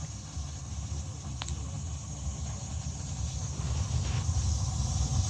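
Low, steady rumble of a Slant/Fin Galaxy gas-fired steam boiler's burner firing, slowly growing louder. A brief faint tick about a second and a half in.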